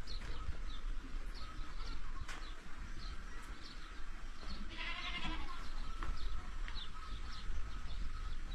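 A farm animal calls once about halfway through, with short high chirps repeating throughout and a low rumble underneath.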